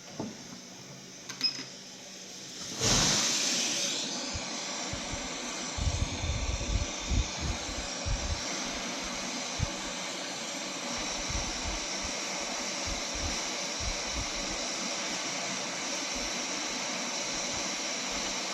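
Hot air rework station switched on about three seconds in, then blowing with a steady fan hiss as it heats a circuit board to melt the solder on a USB-C port.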